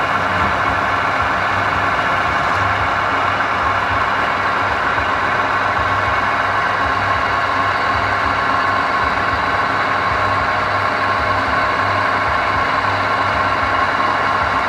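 Wood lathe running steadily, a constant machine hum with no change in speed.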